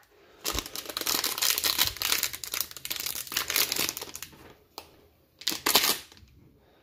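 Foil wrapper of an SP Game Used hockey card pack crinkling as it is handled, with a short lull and one more burst of crinkling near the end.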